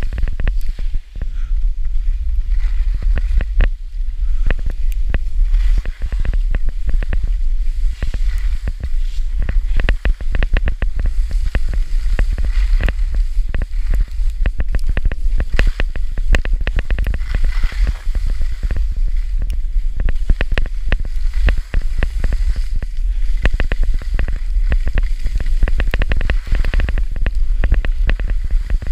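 Wind buffeting the microphone of a downhill skier's camera in a steady low rumble, with the irregular scraping and chattering of skis carving over packed snow.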